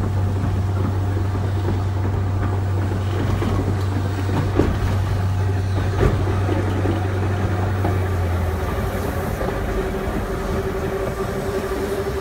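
Manx Electric Railway electric tram running along the track, heard from on board. A steady low hum stops about eight and a half seconds in, there are a couple of short knocks, and a steady higher whine starts near the end.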